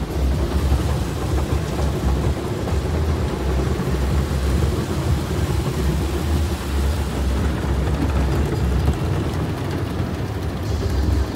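Ryko Softgloss XS2 automatic car wash spraying and working over the car, heard from inside the cabin: a steady rush of water on the body and glass over a deep rumble. The high hiss drops away near the end.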